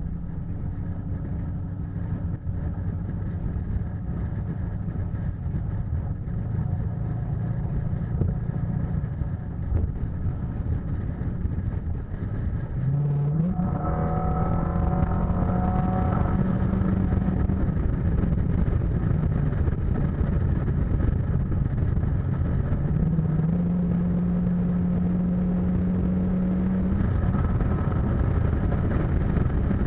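A car's engine and tyre noise while driving. About 13 seconds in the engine note rises as the car speeds up, then holds steady at cruising speed with road noise.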